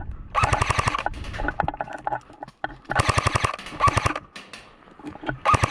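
Airsoft guns firing rapid full-auto bursts, each a fast, even rattle of shots: about half a second in, around three seconds in, briefly just after, and again near the end.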